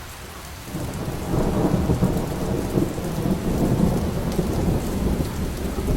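Thunderstorm: heavy rain with a low rolling rumble of thunder that comes up about a second in and carries on.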